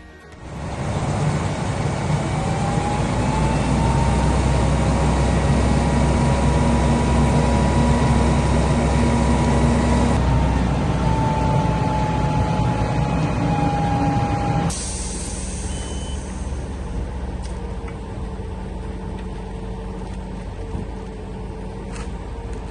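Heavy engine of a truck-mounted crane or large truck running loudly with a whine, then dropping abruptly about two-thirds of the way through to a quieter steady idle.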